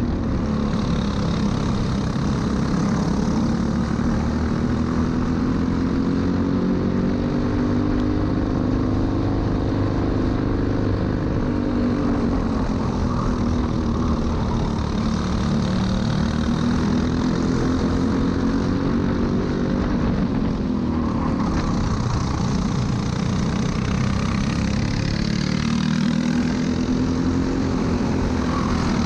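Briggs & Stratton LO206 single-cylinder four-stroke kart engine running at racing speed. Its pitch drops several times and climbs again, the revs falling into corners and rising on the straights.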